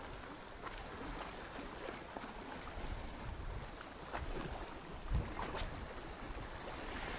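Calm sea washing gently over shallow rocks as a low, steady wash, with a few faint clicks and a soft low bump about five seconds in.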